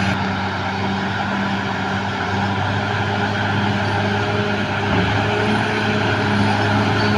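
Caterpillar D6R XL bulldozer's diesel engine running steadily under work, a constant low hum that grows a little louder from about five seconds in.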